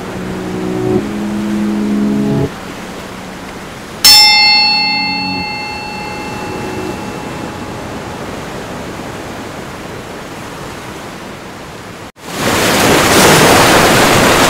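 Soft sustained musical tones over a steady wash of water. About four seconds in, a bell is struck once and its ringing fades out over several seconds. Near the end the sound cuts out for a moment, then loud rushing river water comes in.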